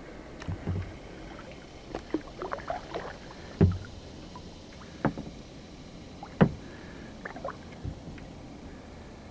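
Kayak paddling on calm water: paddle strokes with water dripping and splashing, and the paddle knocking against the kayak's hull. There are three sharp knocks, the loudest about three and a half, five and six and a half seconds in.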